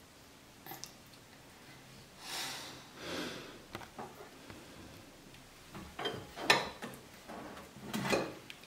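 A toddler's soft breathy puffs and sniffs, then a few short knocks and rubbing sounds as small hands handle a raw salmon fillet on a ceramic plate. The sharpest knock comes about six and a half seconds in.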